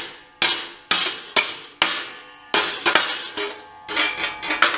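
Hammer strikes on a steel plate, about ten irregular blows, each ringing metallically as it fades. The blows are hand-bending a flange along a row of cut relief slots in place of a press brake.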